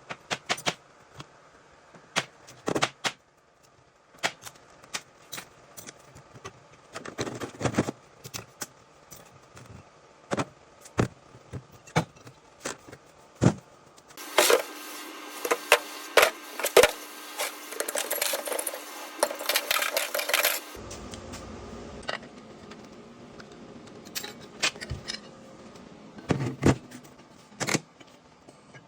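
Steel parts of a Chevrolet 700R4 automatic transmission clinking and clanking as it is taken apart by hand, with a stretch of steady mechanical whirring and rattling about halfway through.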